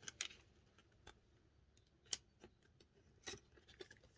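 Faint handling noise of banknotes and the plastic pockets of a cash-stuffing binder: a handful of short, sharp clicks and rustles scattered through near silence.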